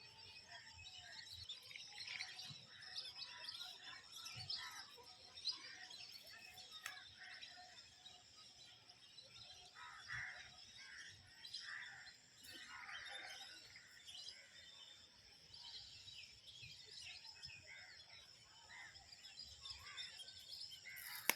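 A chorus of several birds chirping and calling at once, many short high chirps and trills overlapping, faint overall.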